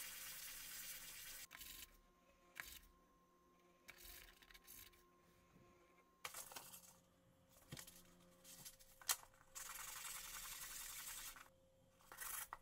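Restoration workshop handling: several scraping or hissing strokes, each a second or two long, with a few sharp clicks between them, the loudest click about nine seconds in.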